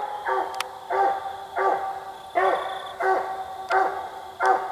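Treeing Walker coonhound barking treed: a steady, evenly spaced run of ringing chop barks, about one every two-thirds of a second, each dropping in pitch at the end. The hound is baying at a raccoon it has treed.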